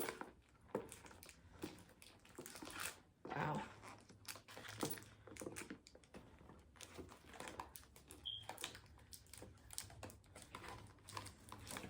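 Faint, scattered rustles and light clicks of a handbag and its packaging being handled.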